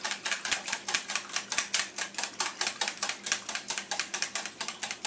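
Fork beating an egg into chicken broth in a plastic bowl: rapid, even clicking of the fork against the bowl.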